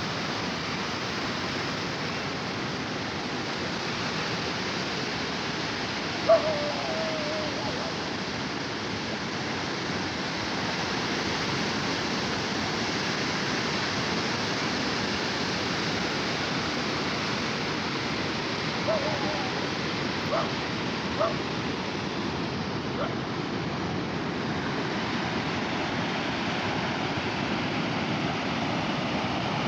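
Sea waves washing on a shore as a steady rushing surf. A few short high calls cut through it, the loudest about six seconds in and three more close together around twenty seconds in.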